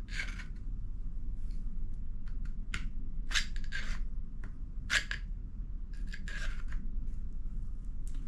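Small fixed-blade neck knife being drawn from and pushed back into its molded plastic sheath: a series of sharp clicks and short scrapes, the loudest about five seconds in, as the blade snaps past the sheath's retention.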